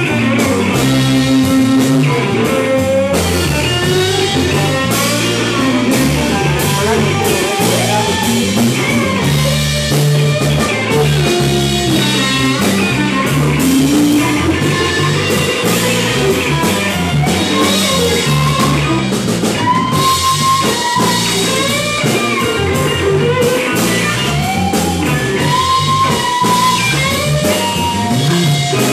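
Live blues-rock trio playing an instrumental passage: electric guitar playing a lead line with bent notes over electric bass and drum kit.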